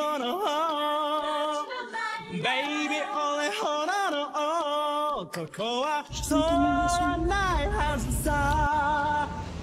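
A woman's voice singing a melody with held notes that bend and waver in pitch, with little or no accompaniment. About six seconds in, a low, steady rumble comes in underneath the voice.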